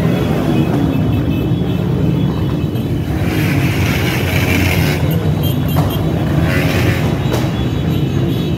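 Motorcycle engines of a procession of bikes passing one after another, a steady loud low rumble with a couple of brief louder passes partway through.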